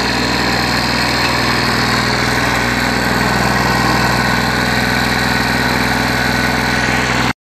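Victa 160cc two-stroke lawnmower engine running steadily as the mower is pushed over grass, cutting off abruptly near the end. It runs, but the owner reckons not well, perhaps from a leaking crankshaft seal.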